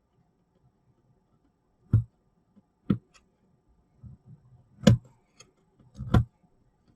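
Handling knocks and clicks from a plastic camping fan being turned over and inspected: four or five separate sharp knocks, the last a quick double.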